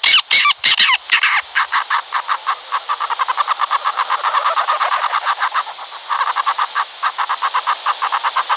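An owl giving a fast, harsh chattering call of rapid pulses, about eight to ten a second, with a short break a little before the end.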